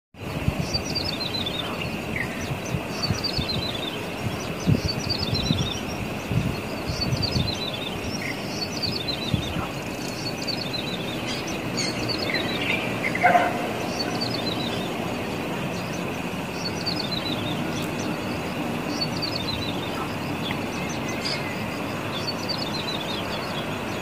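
Plain prinia (ciblek sawah) singing: short phrases of quick notes stepping downward in pitch, repeated about every two seconds, with one louder falling call about halfway through.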